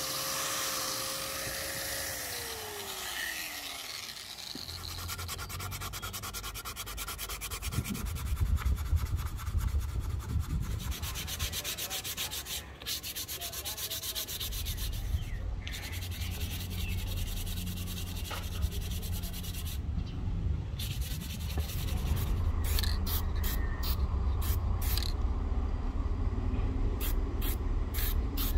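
An electric polisher with a foam pad runs on the axe head, then its motor spins down with a falling whine about two seconds in. After that comes steady rubbing on the rosewood axe handle by hand, turning into a series of short, quick scratchy strokes near the end.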